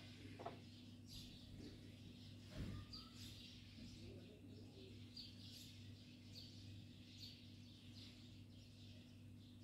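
Near silence: a faint steady low hum, with faint short high chirps of small birds about once a second, and one soft low thump about two and a half seconds in.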